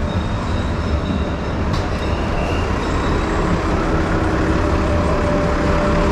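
Dense city street traffic close by: cars and buses idling and creeping along, a steady engine rumble and road noise, with a faint engine hum coming in about halfway through.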